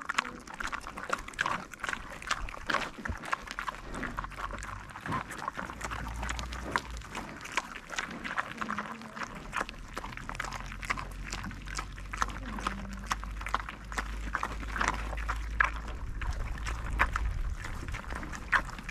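Common warthogs feeding on alfalfa pellets close up: a rapid, irregular crunching of the pellets being chewed and nosed through.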